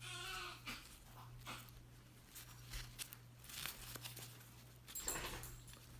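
A baby crying faintly: a short cry at the start and a weaker one about five seconds in. Soft rustles and clicks of hammock cord and fabric being handled, over a steady low hum.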